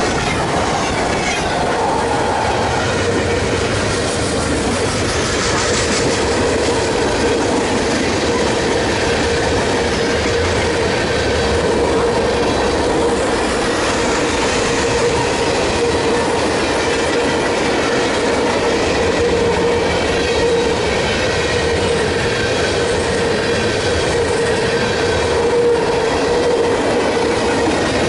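Freight cars of a passing freight train (intermodal well cars, covered hoppers, tank cars) rolling by close to the track: steady wheel-on-rail noise with a sustained high squealing tone from the wheels.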